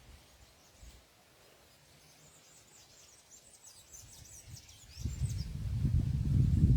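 Small birds chirping in a quick run of faint high notes. From about five seconds in, gusts of wind buffet the microphone with a low, uneven rumble that drowns them out.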